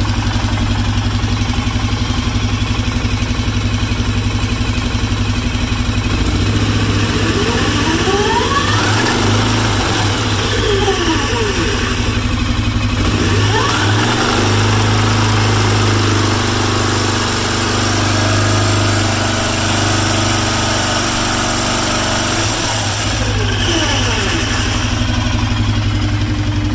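Arctic Cat 650 engine running at a pulsing idle, revved up and back down several times in the middle before settling back to idle. It is being run to bring out a grinding noise from the clutch case area, whose cause the owner is trying to find.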